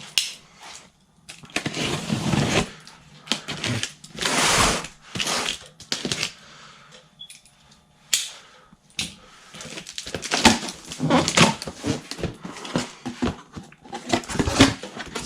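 Cardboard box being opened and unpacked by hand: irregular rustling, scraping and crinkling of cardboard and packaging, with a sharp knock about eight seconds in and busier handling near the end.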